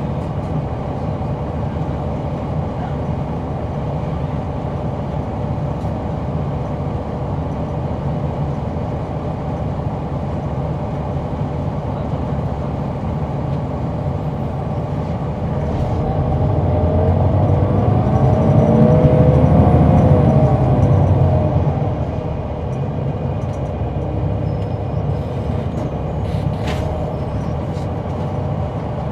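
Cabin sound of a 2004 Neoplan AN459 articulated bus with its Caterpillar C9 ACERT diesel running steadily. About halfway through, the bus pulls away under power: the engine grows louder and its pitch climbs, then falls back as it eases off and settles to a steady run again.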